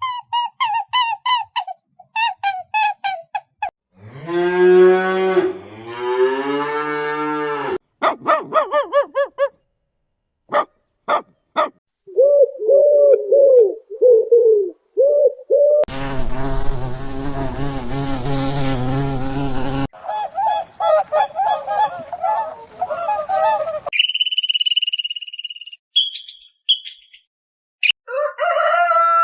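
A string of different animal calls, each cut cleanly into the next with short silent gaps. Among them are rapid repeated calls at the start, a long low call about five seconds in, and high whistled tones near the end.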